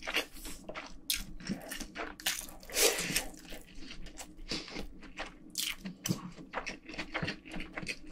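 A person chewing food close to the microphone: irregular wet smacks and sticky mouth clicks, with a louder cluster about three seconds in.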